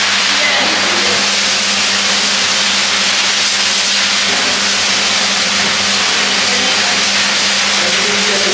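High-velocity dog grooming dryer (pulseur) blowing a loud, steady rush of air over a steady motor hum, drying a large dog's thick undercoat.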